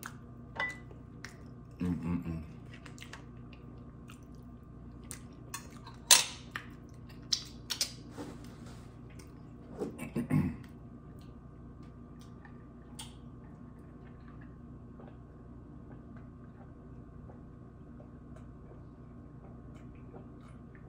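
Close-miked eating sounds: chewing and mouth noises with scattered sharp clicks of utensils on dishes, the loudest about six seconds in. The sounds cluster in the first half.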